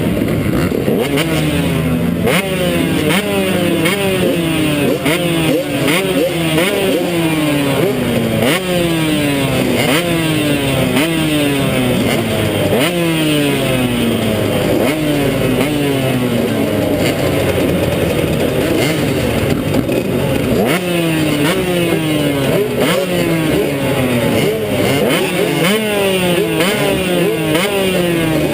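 KTM 150 XC two-stroke dirt bike engine under race throttle, its pitch climbing and dropping again and again every second or two.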